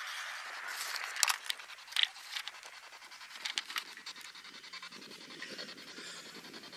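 SB7 spirit box sweeping through radio stations: a steady static hiss, chopped fine, broken by several sharp clicks and blips in the first four seconds.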